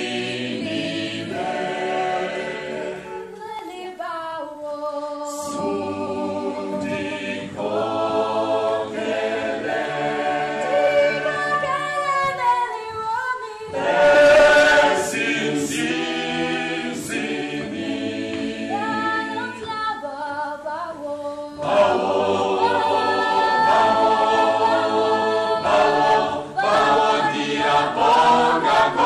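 Mixed chamber choir of men's and women's voices singing a cappella in parts, holding chords through phrases with short breaks between them.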